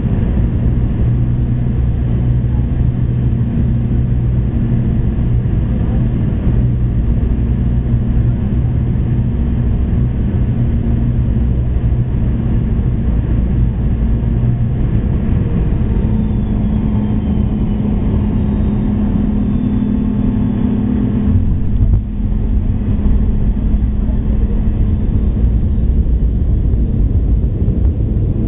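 Boeing 717 cabin noise on final approach: steady drone of the rear-mounted Rolls-Royce BR715 turbofans and airflow, heard from inside the cabin. About 22 seconds in, one low engine tone stops, with a brief dip in loudness.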